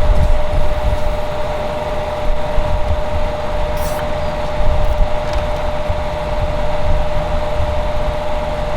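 Steady mechanical drone of running HVAC equipment, with a constant whine over a low rumble and a faint click about four seconds in.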